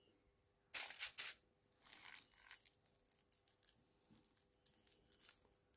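Aluminium foil crinkling and rustling as it is handled: a sharp burst of crackles about a second in, then fainter scattered rustles.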